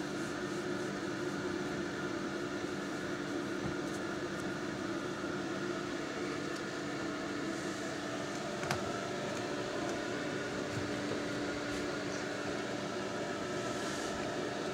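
Steady, even background hum like a fan or air conditioner running, with a faint click about nine seconds in.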